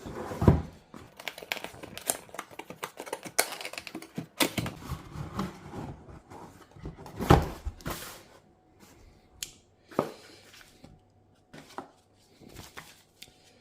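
Packaging being handled by hand: rustling wrapper and irregular clicks, taps and knocks as a portable turntable is taken out of its wrapper and box.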